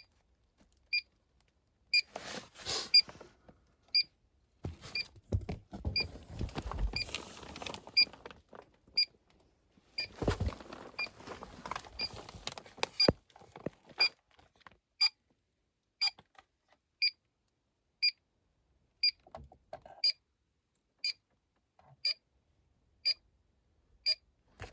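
Inficon Gas-Mate combustible gas leak detector beeping steadily, a short high beep about once a second. The even, slow rate means it is picking up no gas. Bouts of rustling and scraping handling noise come in between the beeps.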